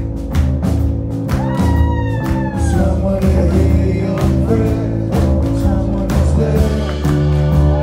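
Live rock band playing: drums, electric guitars and keyboards with a singer at the microphone. One long note arches up and falls back about a second and a half in.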